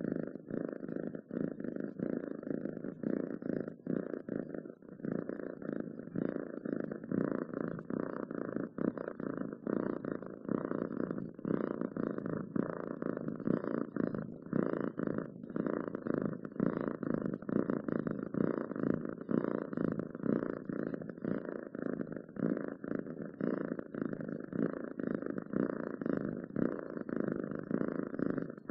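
Domestic cats purring, a continuous, even, fast flutter that does not break.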